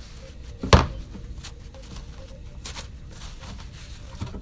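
A sharp knock about a second in, then soft rustles and light taps as hands wipe a perspex sheet with a tissue and handle paper on a workbench.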